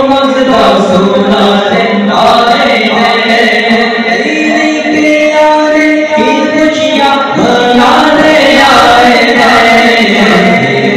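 Several men chanting a devotional naat together in Urdu/Hindi, their voices amplified through microphones, with long held notes.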